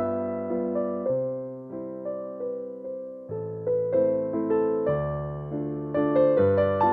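Background piano music: single notes and chords struck about two a second, each fading away after it sounds.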